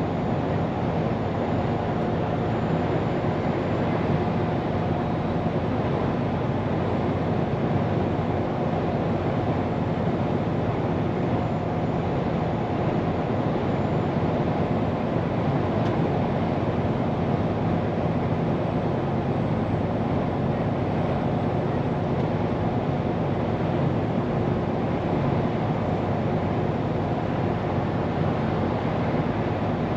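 Scania P410 truck's diesel engine running at a steady cruise, heard from inside the cab with tyre and road noise.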